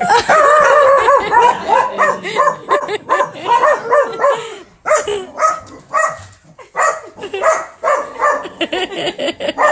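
A dog whining and yipping in high calls that rise and fall. The calls run close together for the first few seconds, then come as shorter separate yips.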